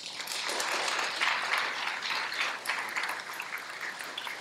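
Audience applauding, with many hands clapping; the applause is strongest in the first couple of seconds and then slowly dies down.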